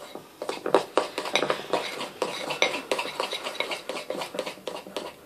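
A metal utensil stirring buttercream icing in a ceramic bowl, clinking and scraping against the bowl in quick repeated strokes as red food colouring is mixed through.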